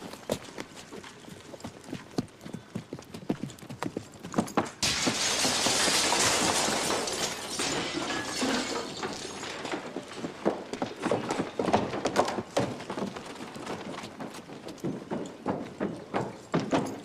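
Horse hooves clip-clopping in an uneven run of hoofbeats. About five seconds in, a sudden loud rushing noise breaks in and dies away over a few seconds while the hoofbeats go on.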